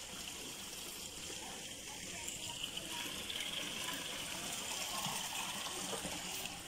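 Steady rush of water flowing in a concrete drain beneath a metal grate, a little louder from a couple of seconds in.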